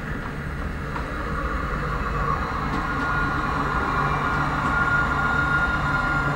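A light-rail tram approaching slowly along the track, its running sound growing louder, with a steady high whine that sets in about three seconds in and strengthens as it nears.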